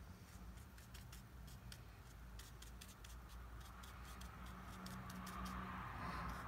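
A fine watercolour brush flicking quick short strokes across paper, a faint run of light scratchy ticks.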